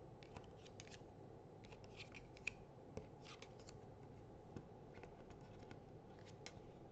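Faint scattered clicks and light scraping of small cardboard game cards being picked up, flipped over and set down on a game board, with a couple of slightly sharper taps about two and a half and three seconds in.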